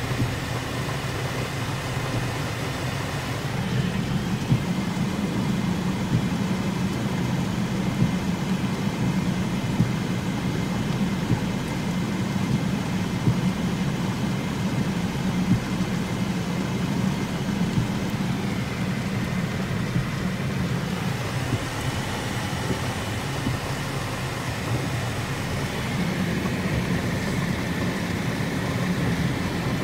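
Heavy rain falling on a car's roof and windshield, heard from inside the cabin, over the steady low hum of the idling car.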